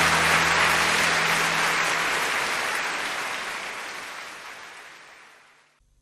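Even rushing of water from the waterfall's cascades, fading away over the last few seconds. Low guitar music underneath stops about two seconds in.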